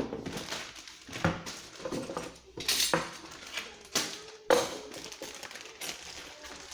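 A chainsaw and its packaging being unpacked and handled: an irregular series of knocks and clatters, a few of them ringing briefly.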